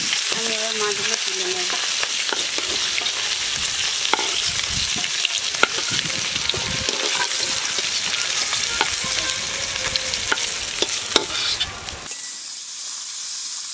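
Fish pieces frying in hot oil in a kadai: a steady sizzle with frequent sharp clicks and pops. Near the end the sizzle abruptly drops to a softer hiss.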